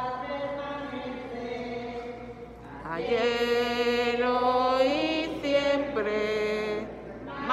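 A voice singing a slow hymn in Spanish with long held notes that glide between pitches, growing louder about three seconds in.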